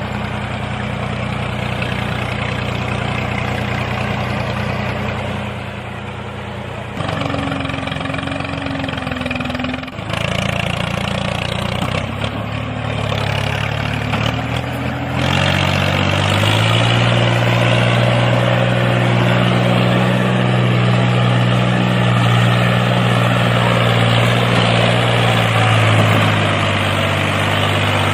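A tractor engine sound runs steadily at a low, idling pitch. Its pitch jumps abruptly a few times, near a quarter and a half of the way through, then holds steady and deep.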